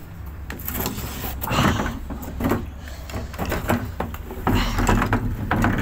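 Irregular knocks, clatters and scrapes of a hard plastic wheelie-bin lid being picked up and handled. A low rumble comes in about four and a half seconds in.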